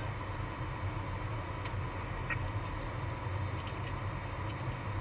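Steady airliner flight-deck noise in flight: a constant rush of airflow with a low hum.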